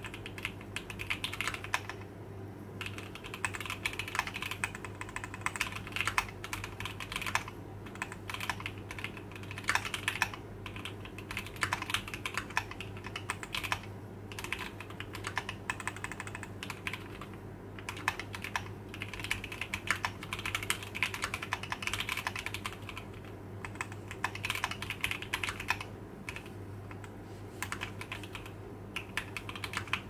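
Typing on a Keychron Q60 mechanical keyboard with Gateron G Pro 2.0 Red linear switches, Cherry-profile dye-sub keycaps and a CNC aluminium gasket-mount case. The keystrokes give a soft, muted clack ("kotokoto") in quick runs broken by short pauses, over a faint steady low hum.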